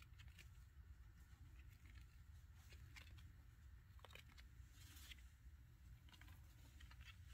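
Near silence: low room hum with a few faint, scattered ticks and patters.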